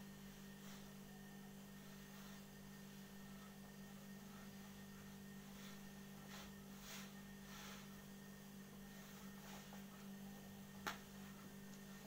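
Near silence with a steady low hum. Faint soft rubbing and pressing sounds of hands kneading mawa and flour dough in a steel plate, with a single sharp click about eleven seconds in.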